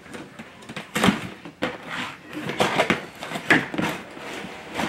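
Cardboard box being opened by hand: the end flap pulled open, with short scraping and rustling of cardboard and a knock about a second in.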